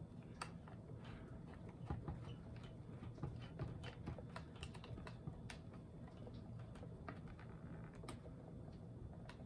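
Phillips screwdriver turning a small screw into a cheap top-handle chainsaw to fasten its dogs (bucking spikes): faint, irregular clicking and scraping of the driver tip in the screw head.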